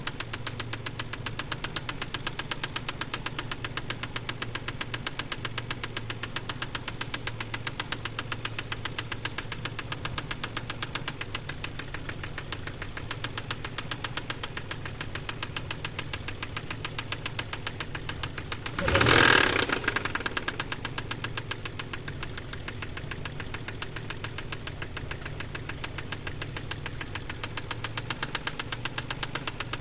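Mazda KLZE 2.5-litre V6 running with a steady, rapid, sharp knock from a spun crankshaft bearing on cylinder No. 6. About two-thirds of the way through the engine is briefly revved, then it settles back.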